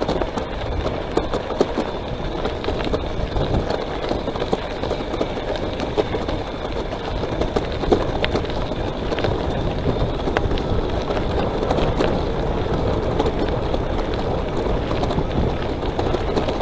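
Wind and tyre noise while riding an electric bicycle: a steady rushing noise with scattered small clicks and rattles.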